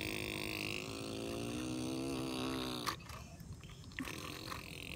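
A person making a buzzing engine noise with their voice, a drawn-out 'brrr' for a toy tractor being pushed through sand; the pitch sags and it stops just under three seconds in with a sharp click, and a new one starts at the very end.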